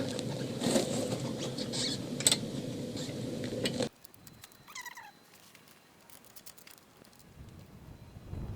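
Scuffing and rustling with scattered clicks, which cuts off abruptly about four seconds in; in the near quiet that follows, a brief series of falling chirps sounds once.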